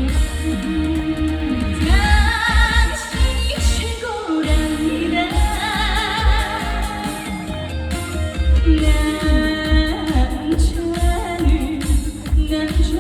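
A woman singing a Korean trot song live over loud amplified accompaniment with a steady, heavy bass beat, holding long notes with vibrato.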